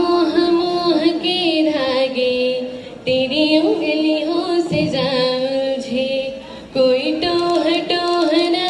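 A young woman singing without accompaniment into a handheld microphone: long held notes with some vibrato, in three phrases with short breaks about three and seven seconds in.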